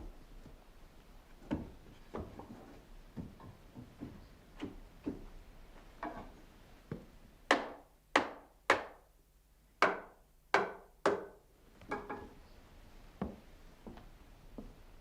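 Wood being struck: scattered light knocks, then a run of six sharp, loud blows in the middle, each a second or less apart, then lighter knocks again.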